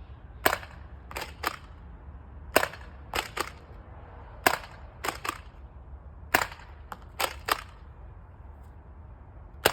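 Spring-powered Nerf foam-dart blaster fired five times, about every two seconds, each shot a sharp snap. After each of the first four shots come two quick softer clicks as the priming action is pulled back and pushed forward.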